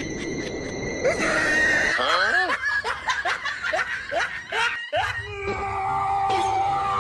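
A quick run of short, high-pitched vocal cries of a laughing or squealing kind, several a second. About five seconds in they cut off and steady background music follows.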